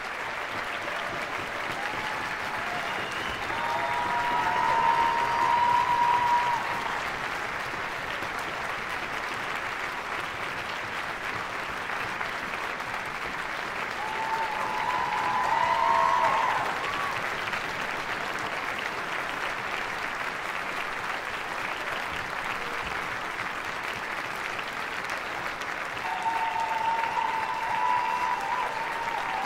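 Theatre audience applauding steadily at an opera curtain call. The applause swells three times, with voices shouting and cheering above it.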